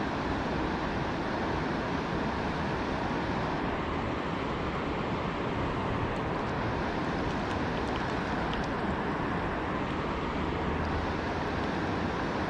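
Steady rush of water pouring through a dam spillway, an even, unbroken roar.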